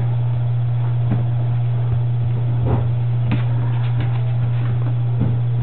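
A steady low hum, with faint scattered clicks and light rustling over it.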